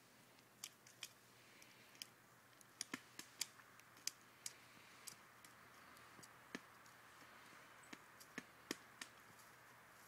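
Irregular sharp taps and clicks, about eighteen in ten seconds and bunched together around three to four seconds in, from a pileated woodpecker pecking and chipping at dead wood.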